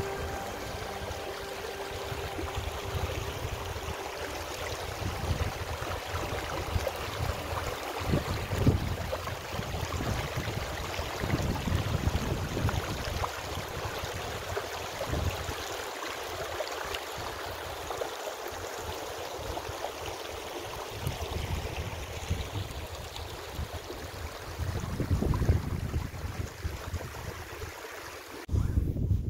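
Shallow snowmelt mountain stream rushing and gurgling over stones in a steady hiss, with irregular gusts of wind rumbling on the microphone, strongest about two-thirds of the way in and near the end.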